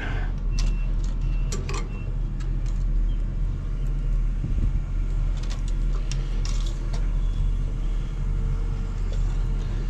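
Diesel engine of heavy construction equipment running steadily at a low, even pitch, with scattered light clicks and knocks.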